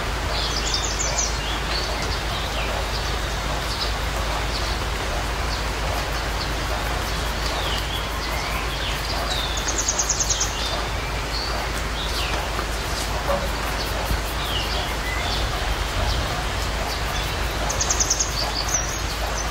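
Birds chirping and calling over a steady outdoor hiss. A fast pulsing trill comes three times: about a second in, around ten seconds, and near the end.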